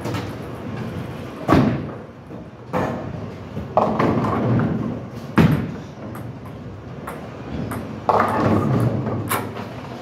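Bowling balls thudding down onto the lanes and rolling, then crashing into the pins twice: each pin crash is a sudden clatter that dies away over about a second. Several sharp knocks fall between them.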